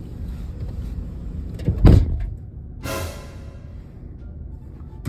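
A car door slams shut with a heavy thump about two seconds in, over a low steady rumble. A short pitched sound follows about a second later.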